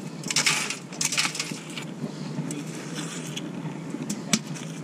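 Rubber-gloved hands breaking apart and crumbling a clump of wet canal mud, with irregular crumbly scrapes. A sharp click near the end as a small metal find is dropped into a steel bucket.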